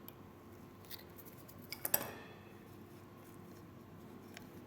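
Small metal hand tools from a coil-building kit give a few faint, sharp clicks, the loudest pair about two seconds in with a brief ring, while stray cotton fuzz is cleared from the wick.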